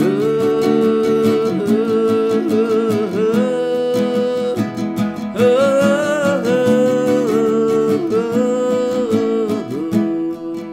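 A man's voice carrying a wordless melody in long, gliding held notes over a plucked acoustic guitar accompaniment.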